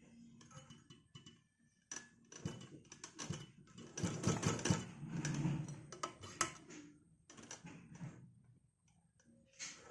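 Sewing machine stitching in short, uneven bursts of rapid clicking while darning a tear, the longest run about four to five seconds in.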